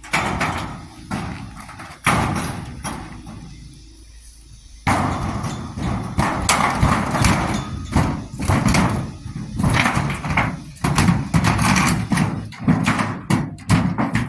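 Metal garage door being bent in half under a person's body weight: a thud at the start and another about two seconds in, then near-continuous banging and clattering of the metal from about five seconds on.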